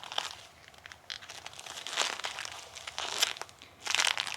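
Bilpearl rubber gloves being rubbed together and sticking, a crinkly rubbing with many small sticky clicks and pops. It is loudest about two seconds in and again near the end.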